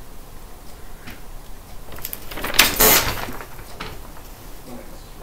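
A large sheet of paper rustling and crackling as it is handled and moved, loudest from about two to three seconds in, with lighter crackles before and after.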